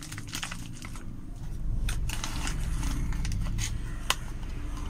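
Packaging handled in the hands: a clear plastic bag around a drill chuck crinkling and rustling, then a cardboard box, with many scattered sharp clicks and one louder click near the end. A low rumble comes in about a second and a half in.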